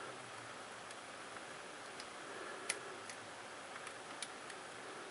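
A few faint, scattered clicks and ticks as a replacement laptop LCD panel and its metal side bracket are handled and lined up in the screen lid, over a low steady hiss.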